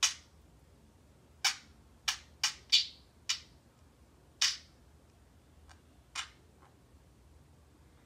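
A parakeet in its cage giving about ten short, sharp chirps at irregular intervals, some in quick runs of two or three.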